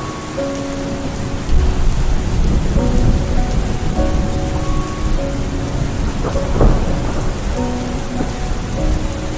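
Heavy rain pouring steadily, with a deep low rumble that swells about a second and a half in and eases off later. A faint tune of held notes plays over it.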